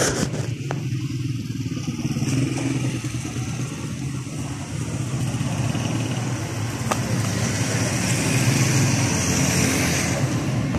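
Steady motor-vehicle engine noise, such as a motorcycle running close by, growing somewhat louder toward the end.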